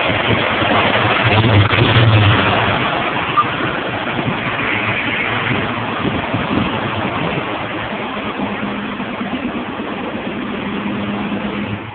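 Engine of a 1985 Chevrolet Caprice, a GM crate engine with a new Edelbrock carburetor, running steadily near idle, a little louder about two seconds in.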